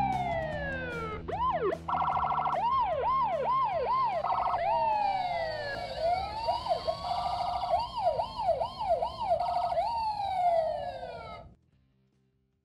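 Electronic emergency-siren sound effects from the Dickie Toys Fire & Rescue playset's battery-powered sound module: slow falling wails alternate with fast rising-and-falling yelps and short steady tones, then stop suddenly near the end.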